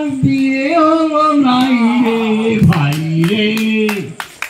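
A man singing a Bengali song through a microphone, holding long notes that slide from one pitch to the next. In the second half, sharp clicks come about three a second.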